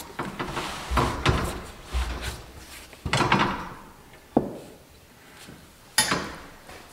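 Hands scuffing and pushing on a truck tire's rubber sidewall while a bead breaker presses on a bead that is still stuck. The sound is a few irregular rubbing scrapes with one sharp knock about four seconds in.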